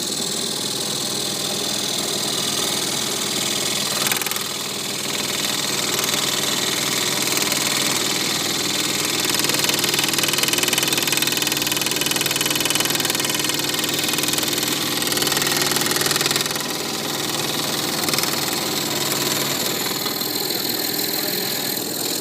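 Scroll saw running and cutting through a wooden tone board: a steady, rapid buzz from the reciprocating blade, with a strong hiss of the cut. It gets louder in the middle and eases off about 16 seconds in.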